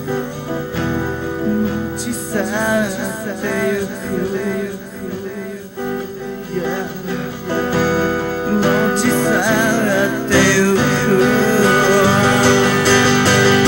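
Acoustic guitar music with a wavering melody line above the chords, swelling louder about ten seconds in.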